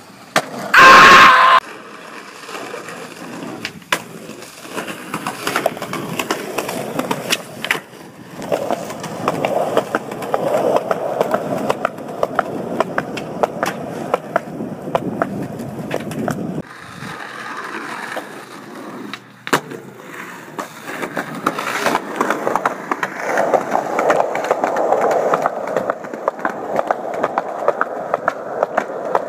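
Skateboard wheels rolling over asphalt and concrete, with the sharp clacks of boards popping and landing tricks, and one loud burst about a second in.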